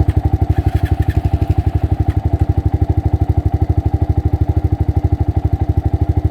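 Honda ATC250SX's single-cylinder four-stroke engine running steadily, with about a dozen even pulses a second.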